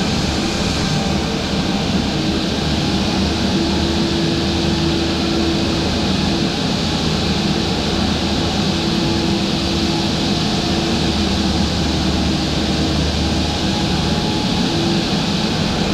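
Heavy machinery engines running steadily: a continuous drone with a low hum and a held mid-pitched tone underneath.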